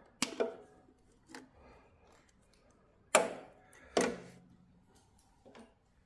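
Metal hand tools, side-cutter pliers and a nut driver, knocking and clinking against a sheet-steel generator terminal box and its wire terminals: a few separate sharp knocks, the two loudest a little past the middle.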